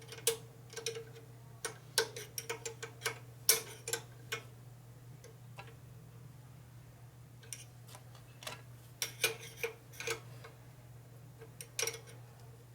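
Irregular metal clicks and clinks of a wrench working as nuts are tightened down, coming in clusters with a gap in the middle, over a steady low hum.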